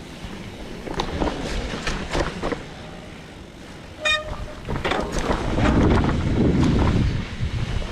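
Mountain bike rolling down a rough dirt trail: the frame and parts rattle and click over bumps, a short high squeal sounds about four seconds in, and a loud rumble of tyres and wind on the microphone builds near the end.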